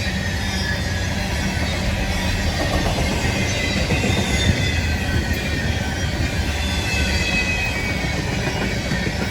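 Freight train rolling past: a steady rumble of wheels on rail, with faint high wheel squeal drifting in pitch above it.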